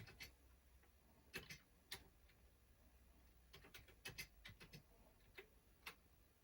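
Faint, irregular key clicks from a Commodore 64 keyboard being typed on, some in quick runs of several keystrokes.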